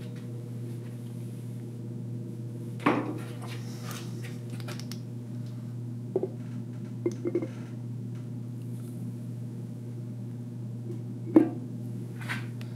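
Metal clunks and knocks as the cylinder head of a Yanmar 3TN75 three-cylinder diesel is set down on the block and settled onto its gasket: one solid clunk about three seconds in, a few lighter knocks around six to seven seconds, and the loudest knock near the end. A steady low hum runs underneath.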